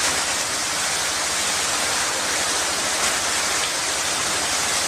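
Steady rushing and splashing of a pool's wall waterfall feature, a sheet of water falling from a ledge into the pool.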